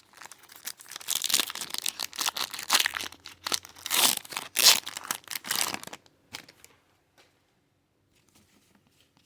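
A foil Pokémon booster pack wrapper being torn open and crinkled: about six seconds of dense crackling rips, then near quiet with a few faint ticks.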